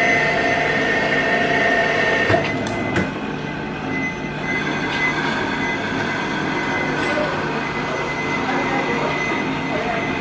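Lian Feng LF-BS12A automatic 12-inch band saw running, a steady mechanical whine with high squeal-like tones. A lower tone drops out about two seconds in, and a few sharp clicks follow.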